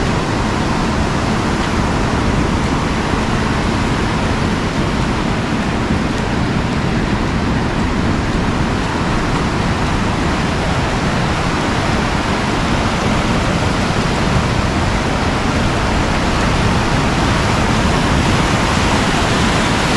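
Ocean surf breaking and washing up a beach: a steady rushing noise with no distinct individual sounds.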